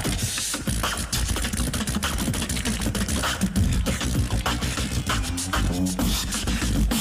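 Tag-team beatboxing: a fast vocal drum beat of rapid percussive strokes over deep bass sounds, with a pitched bass slide near the end.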